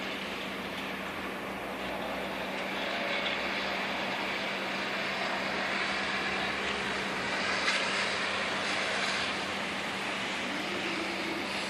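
City road traffic: a steady hiss of tyres and engines that swells as a vehicle passes, loudest from about three to nine seconds in, over a constant low hum.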